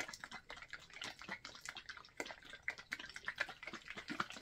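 A plastic squeeze bottle of acrylic paint being shaken hard, its contents sloshing in quick, irregular strokes that stop abruptly near the end. The bottle is shaken to remix paint that has separated inside it.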